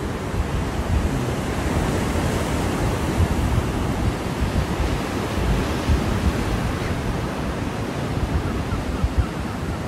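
Ocean surf breaking and washing ashore, with wind rumbling on the microphone in irregular gusts.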